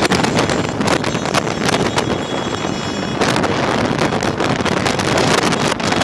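Wind rushing and buffeting on the microphone of a camera moving fast, over the running noise of motorcycles riding along the dirt track.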